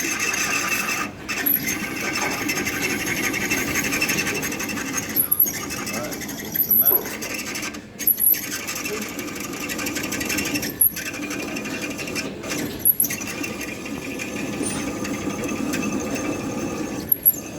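A machine drilling mild steel with a 10 mm bit: a steady motor whine over a grinding cut, broken several times by short, high chirps.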